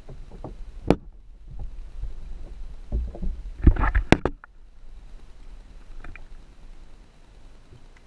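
Underwater knocks and water movement picked up through a GoPro Hero3's waterproof housing as the camera is moved, with a single sharp knock about a second in and a loud cluster of knocks between three and a half and four seconds in.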